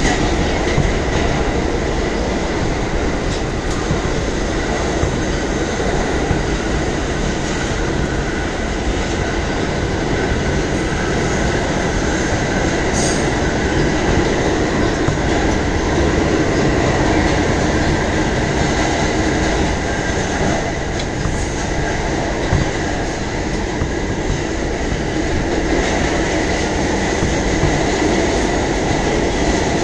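R211A subway car running at speed through a tunnel, heard from inside the car: a steady loud rumble of wheels on rail with a constant high whine.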